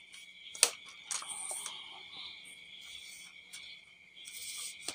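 Metal tripod legs handled, their flip-lock leg clamps clicking: a sharp click about half a second in, a softer one soon after and another near the end. A steady high-pitched trill runs in the background.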